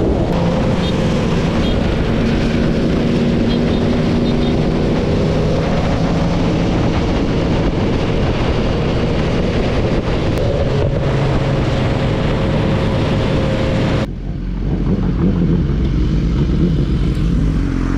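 Motorcycle engine running at cruising speed under heavy wind rush on the microphone. About three quarters of the way through, the wind noise drops away suddenly, leaving the engine running slower.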